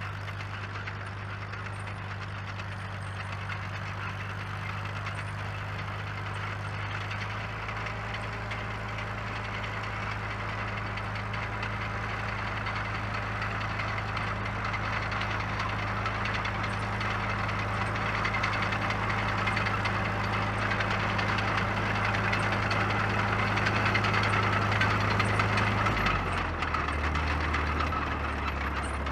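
1949 Caterpillar D2 crawler's four-cylinder diesel running steadily as the crawler drives along, growing gradually louder as it comes closer. Near the end the engine note drops to a lower speed.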